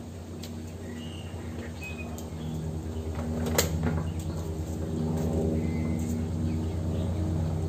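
A low, steady motor hum, slowly growing louder, with a few short bird chirps and one sharp click about three and a half seconds in.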